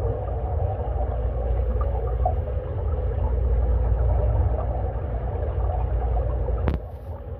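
Muffled underwater sound of a swimming pool heard through a submerged camera: a steady low rumble with a faint steady hum over it. A sharp click comes near the end, and the sound drops briefly after it.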